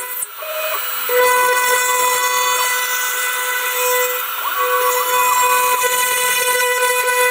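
Homemade CNC machine's spindle whining steadily as a small end mill cuts a slot through thin aluminium plate, with the feed rate set too fast. The cutting noise dips briefly at the start and steps up in level about a second in.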